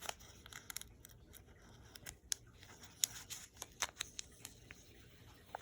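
Small plastic sticker packet being opened and handled by hand: scattered sharp crackles and clicks of thin plastic packaging.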